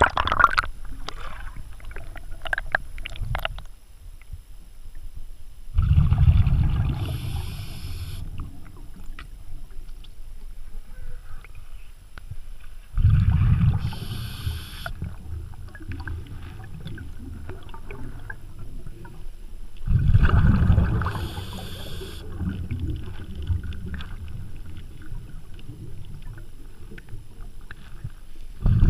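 A small boat being rowed: oar strokes through the water surge about every seven seconds, with quieter water and wind noise between them.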